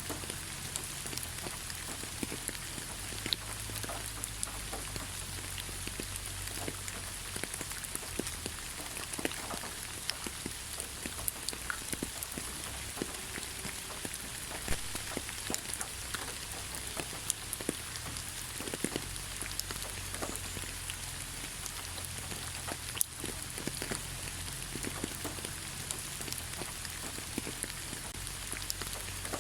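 Light rain falling steadily on leaves, a constant soft hiss with scattered individual drop ticks.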